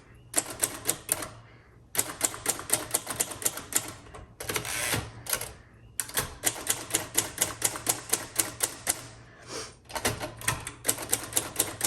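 1958 Royal Futura 800 manual typewriter typing: rapid runs of sharp typebar strikes on the platen, broken by a few short pauses.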